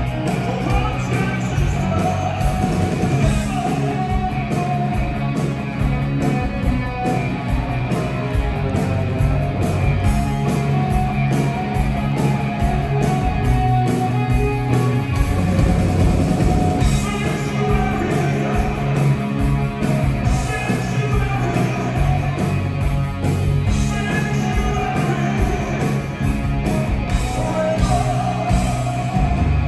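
Live rock band playing loudly: electric guitars, bass and drums, with a male lead singer's vocals.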